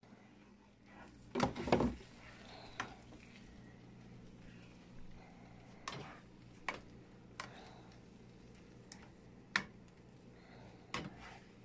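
Spatula clicking and scraping against a nonstick frying pan as runny eggs are stirred, in short, sharp strikes at irregular intervals, with a louder clatter about a second and a half in, over a steady low hum.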